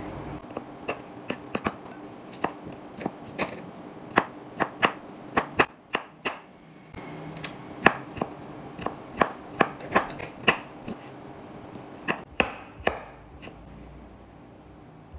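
Kitchen knife dicing soft young coconut meat on a wooden cutting board: irregular sharp knocks of the blade striking the board, about one or two a second, stopping near the end.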